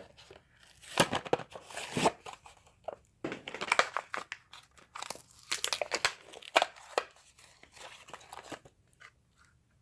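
A plastic blister pack and its cardboard card crinkle and tear in irregular bursts, with sharp clicks, as a die-cast toy car is pulled out of its packaging.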